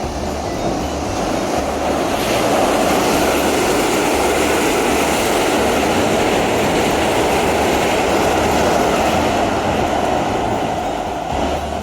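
Keisei 3000 series electric train running over a railway bridge: a steady, loud rumble of wheels on rails that builds over the first couple of seconds and eases off near the end as the train passes.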